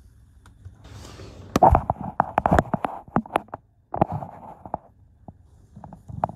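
Scuffing, rubbing and a quick run of knocks as a cloth is worked over car floor carpet, with the knocks clustered in the middle.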